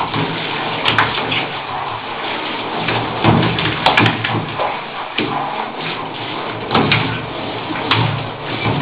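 Hand-held shower head spraying water onto the bottom of a bathtub: a steady hiss of falling water, with a few sharp knocks or splashes now and then.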